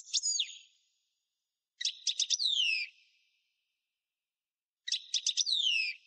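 A small songbird calling in three short phrases: each a quick run of sharp chips followed by a high whistle that falls in pitch.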